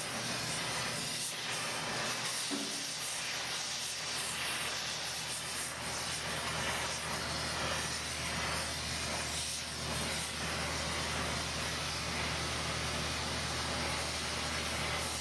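Gas torch burning with a steady hiss, its flame played over a heavy copper transmission-line flange to heat it for soldering.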